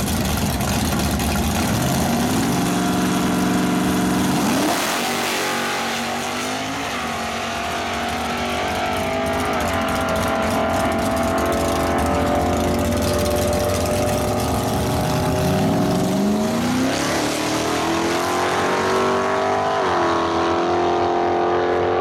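Drag-race car engines revving at the starting line. They climb sharply in pitch about two seconds in, hold at high revs for long stretches, and rise again twice near the end.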